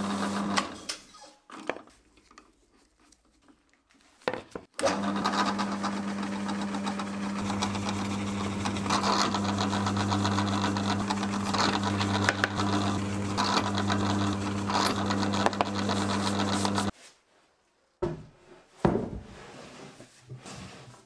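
Pillar drill press motor humming steadily, stopping within the first second, then started again about five seconds in and drilling into a wooden rail for about twelve seconds before it cuts off suddenly. A few knocks of wood being handled follow near the end.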